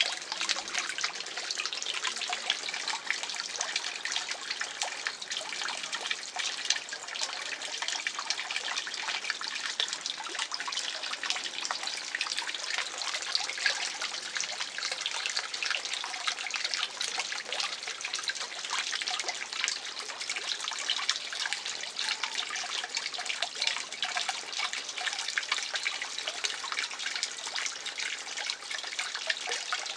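Garden pond water trickling and splashing steadily, a dense patter of small drops and splashes.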